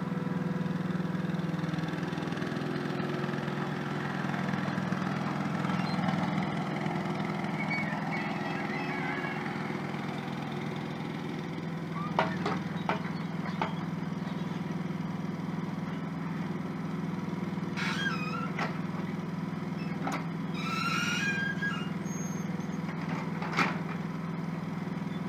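Micro excavator's small diesel engine running steadily under load as the bucket digs soil and turf. A few sharp knocks about halfway through and once near the end, with brief higher squeaks in between.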